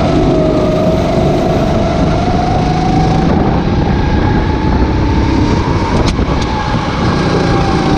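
Racing kart engine heard onboard at speed. Its note dips slightly just after the start, climbs slowly and holds high, then eases off a little near the end, over a heavy low rumble of wind and vibration. Two faint clicks come about six seconds in.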